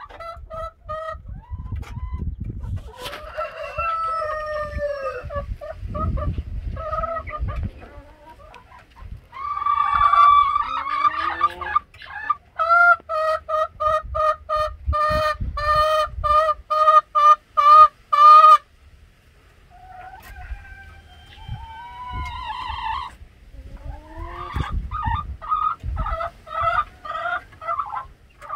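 Chickens calling and clucking: several longer calls with gliding pitch, and a rapid run of repeated calls, about two a second, for some six seconds in the middle.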